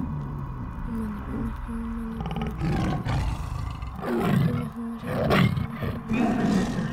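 Film sound effects: a series of loud, rough roars, the strongest about four and five seconds in, over a low held tone.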